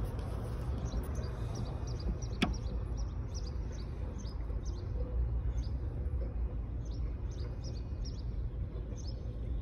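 Steady low outdoor background rumble, with faint scattered high chirps and a single sharp click about two and a half seconds in.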